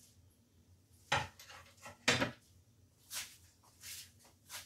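A large serving plate set down on a kitchen counter: two knocks about a second apart, with dishes clinking, then a few softer rustling noises.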